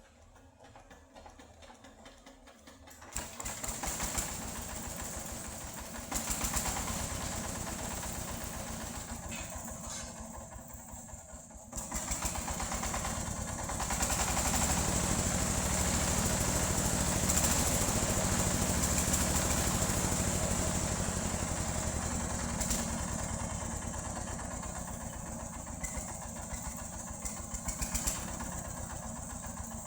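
Engine-driven sawmill band saw running and sawing a log, with a steady high whine above the engine. It starts about three seconds in and grows louder in steps, loudest around the middle.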